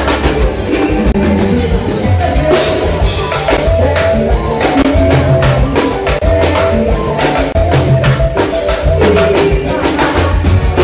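Live band music playing loudly through the stage sound system, with a steady drum beat, a bass line and a woman's singing voice.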